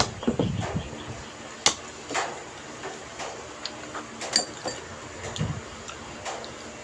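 Eating sounds: irregular sharp clinks of metal forks against plates, with chewing of sticky caramelised banana cue.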